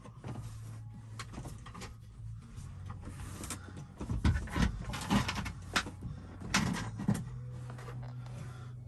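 Irregular knocks, clicks and scrapes of hand work on the car body, with a low steady hum underneath during the first two seconds and again in the last two.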